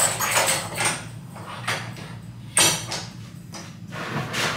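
Pilates Cadillac's push-through bar and springs clanking and sliding as they are handled: a few separate knocks about a second or more apart, over a steady low hum.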